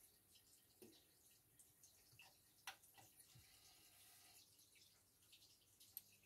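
Near silence: room tone with a few faint scattered clicks and ticks.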